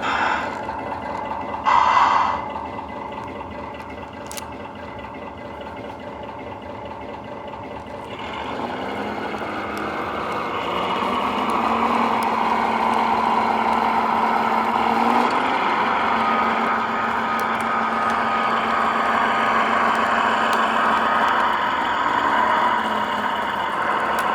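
Brass O gauge model doodlebug running on track: its electric motor and wheels make a steady running whine that grows louder from about eight seconds in, after a brief loud burst near two seconds in.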